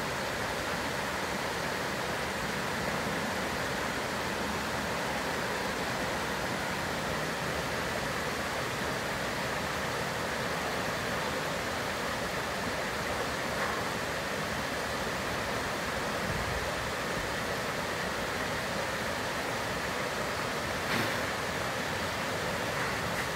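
Shallow rocky stream running over small cascades: a steady, even rush of water, with one brief knock near the end.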